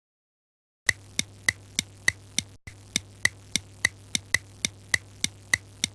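Evenly spaced sharp ticks, about three a second, over a faint low hum, starting about a second in after dead silence.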